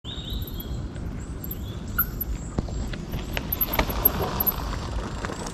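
Mountain bike rolling down a dirt trail: a rush of tyres on dirt swells around the middle as the bike nears, with a few sharp clanks and rattles from the bike over the bumps.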